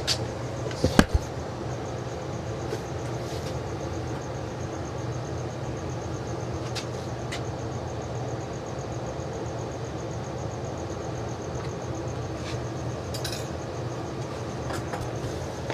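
A steady low machine hum with occasional light clicks and taps; a sharper double knock about a second in.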